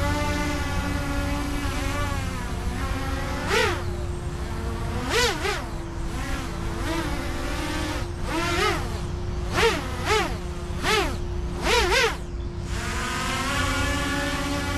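AxisFlying KOLAS 6 six-inch FPV quadcopter with folding propellers and inverted motors, flying: a steady hovering buzz, then a run of about ten quick throttle blips, each a whine that rises and falls in pitch, settling back to a steady hover near the end. The prop noise sounds pretty clean.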